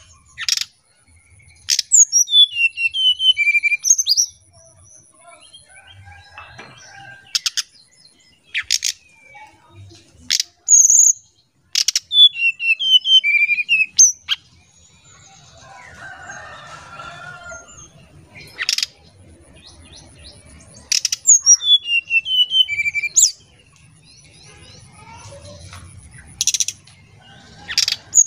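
Brown-chested jungle flycatcher singing its fluting song: sharp single call notes, then a falling run of clear whistled notes. The phrase repeats about every nine or ten seconds.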